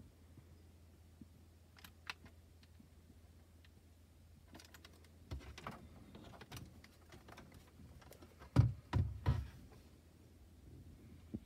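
Scattered plastic clicks and knocks from handling a Canon Selphy compact photo printer and plugging in its cable, with a cluster of louder thumps a little past the middle. A low steady hum underneath.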